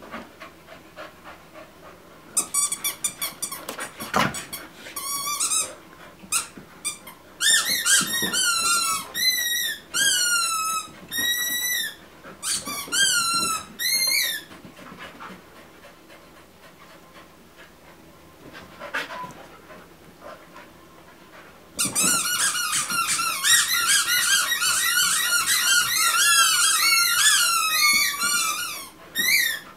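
Squeaky dog toy squeaked over and over as a dog bites down on it: quick runs of short, high squeaks that bend up and down. The squeaking starts about two seconds in and stops about halfway, then comes back about twenty-two seconds in as almost unbroken squeaking until shortly before the end.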